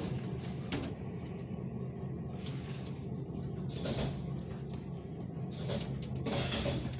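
Steady electrical hum of an ER9M electric multiple unit, heard from inside the train. Short hisses of air break in about four seconds in and again near the end.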